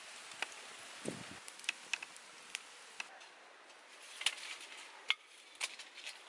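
Small wood fire crackling under a cooking pot: irregular sharp snaps and ticks over a steady hiss, with a dull knock about a second in.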